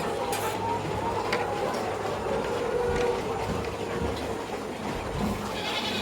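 A flock of young laying hens in a poultry house, many birds calling and clucking at once in an overlapping chorus.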